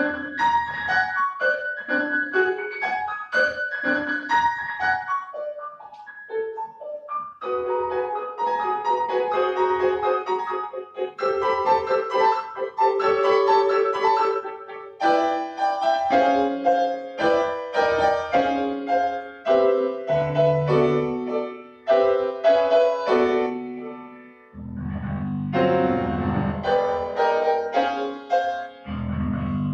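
Solo piano playing a classical piece: short repeated notes at first, then longer held chords that ring on, and heavy low bass chords near the end.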